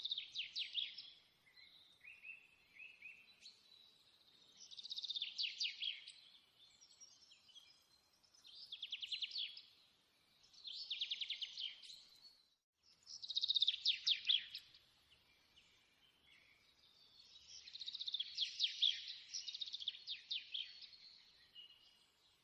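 A bird singing in short phrases of rapid, trilled high notes, each a second or two long, repeated with short pauses between them.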